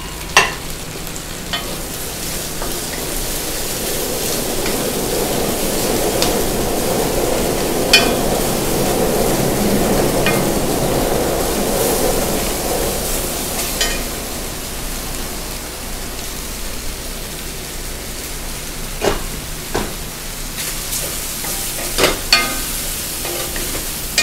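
Chicken and mushrooms sizzling in oil in a stainless steel wok while being stirred with a wooden spatula, the stirring and sizzling louder through the middle stretch. A few short sharp knocks of the spatula against the pan come through at intervals.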